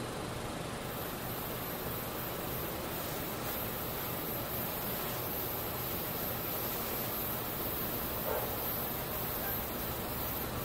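Steady outdoor background hiss at a railway platform, even and featureless, with a faint thin high whine coming in about a second in.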